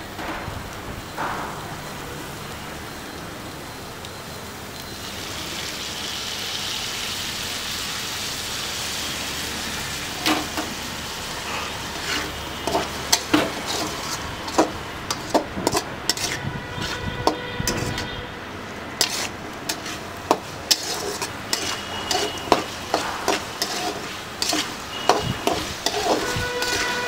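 Shallots frying with a sizzle in a metal kadai, and a metal slotted spatula scraping and clinking against the pan as they are stirred. The sizzle grows about five seconds in, and the quick, irregular spatula strokes start about ten seconds in.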